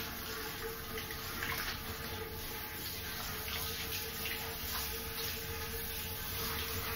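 Water spraying steadily from a handheld shower head onto a dog's wet coat, in a small shower stall.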